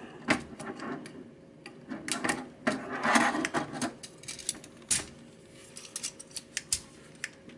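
Plastic parts of a Transformers Astrotrain action figure being handled and moved during transformation: a string of small, irregular clicks and snaps, with a longer scraping rustle about three seconds in.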